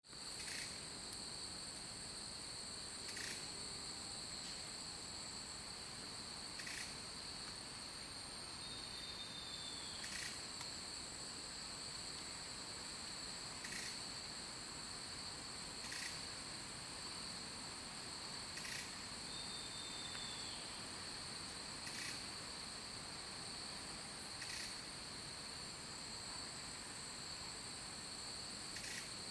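Steady high-pitched drone of rainforest insects, two constant tones held throughout, with faint clicks every three seconds or so and two brief falling whistles.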